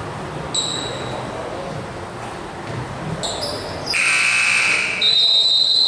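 Basketball game sounds in a gym: sneakers squeak on the court, then about four seconds in an electric scoreboard buzzer sounds for about a second. A steady, high, loud tone follows it for almost two seconds.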